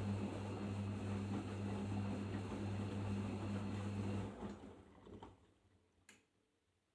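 Arçelik 5083 washing machine humming steadily with a hiss, typical of its drain pump or water inlet valve working during the rinse. The hum cuts out about four seconds in and is followed by a single sharp click.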